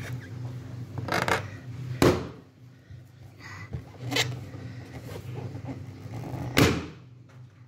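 Balloons being pushed, rubbed and knocked about by a small child's hands, giving a few sharp thumps and taps, the loudest about two seconds in and near the end, with a faint squeak between them.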